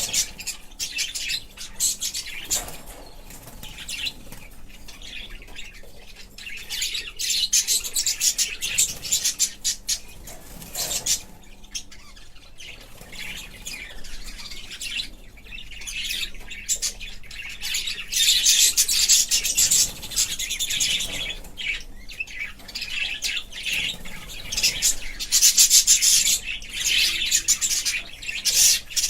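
Budgerigars chirping and chattering: a fast, continuous stream of high chirps, louder in stretches about two-thirds of the way through and again near the end.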